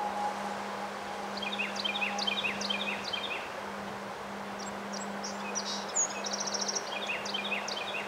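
Strong wind rushing through bare trees as a steady noise, with a songbird singing over it: a phrase of quick repeated high notes, a short high trill, then the same phrase again near the end. A steady low hum runs underneath.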